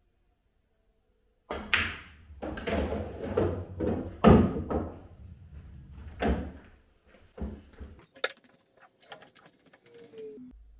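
Pool balls knocking and thudding on a pool table: a sharp knock about one and a half seconds in, then a string of heavy knocks over a low rolling rumble, the loudest about four seconds in. Lighter clicks follow near the end as balls are handled and set back on the table.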